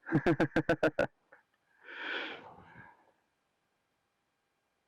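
A person's short burst of laughter, about seven quick voiced pulses in the first second, followed by a breathy exhale or sniff.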